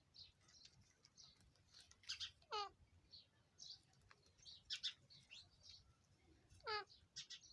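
Pet parrot calling: two loud calls that fall in pitch, about two and a half and seven seconds in, with shorter high chirps between them.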